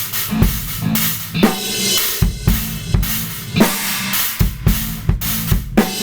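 Drum kit played in a busy improvised groove: bass drum, snare and cymbal strikes several times a second, with cymbal wash ringing over them.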